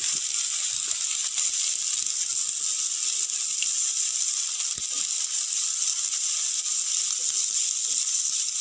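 Sliced onions sizzling in oil in a non-stick frying pan, a steady hiss, while a wooden spatula stirs them with faint scrapes and taps against the pan.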